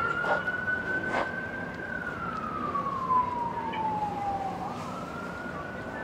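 Emergency vehicle siren wailing: a single tone that holds high for about two seconds, sinks slowly over the next three, then climbs again near the end, with a few short knocks along the way.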